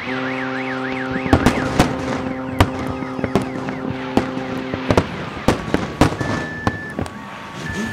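Fireworks going off in rapid, irregular bangs while a ship's horn sounds one long, steady blast that stops about five seconds in. A warbling alarm runs through the first second and a half, and short high beeps sound near the end.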